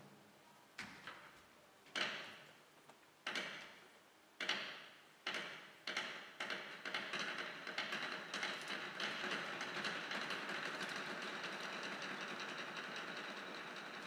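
Chinese barrel drums of a 24 Festive Drums troupe played softly with sticks. A few light, separate strokes come about a second apart, then quicken into a fast, even roll that keeps going.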